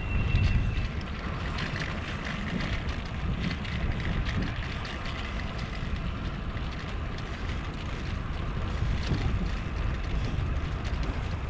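Steady wind rumble on the microphone and the rolling noise of wheels on a concrete path, with scattered light ticks; a little louder in the first second.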